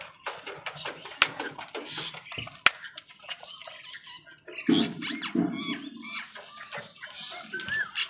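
A flock of house crows feeding: many sharp, irregular taps and clicks of beaks pecking at food in a plastic bowl and on concrete, with two harsh caws about five seconds in.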